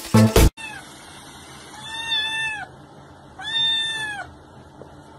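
A kitten meowing twice, two long, high, drawn-out meows about a second apart. Music cuts off about half a second in.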